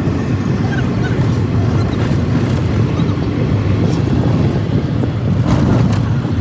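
Steady low rumble of a car driving along a highway, heard inside the cabin: engine and road noise. A few brief knocks come about four seconds in and again near the end.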